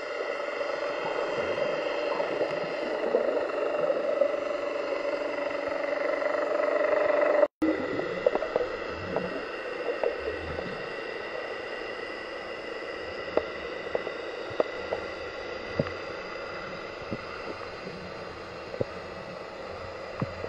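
Underwater ambience recorded through a camera's waterproof housing: a steady, muffled hum with a few faint constant tones, and scattered faint clicks in the second half. The sound drops out for an instant about seven and a half seconds in.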